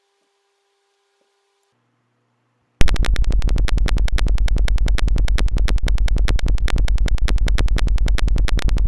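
Simulated piezo buzzer of a door alarm circuit sounding: a loud electronic buzz pulsing about ten times a second, starting about three seconds in. The alarm runs only on the charge of a capacitor.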